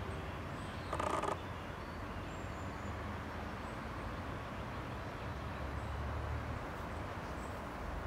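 Steady outdoor background noise with a low rumble, and one short pitched sound about a second in.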